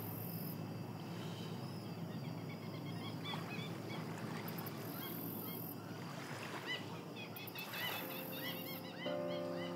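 Outdoor park ambience: a steady low background hum with scattered bird calls, honking like geese, in short clusters. Soft piano music fades in near the end.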